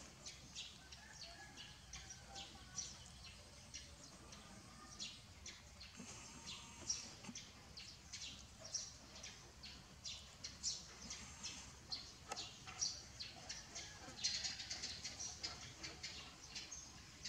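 Small birds chirping and twittering in many short, high calls, busiest for a couple of seconds near the end.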